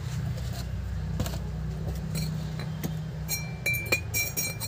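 Ceramic crockery clinking: a few sharp knocks, then a quick run of light ringing chinks near the end, over a steady low rumble.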